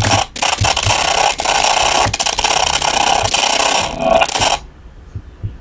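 Computer-generated test sound from a Simulink audio-effects simulation: a loud, harsh rasping hiss with steady bands in it, which cuts off suddenly near the end.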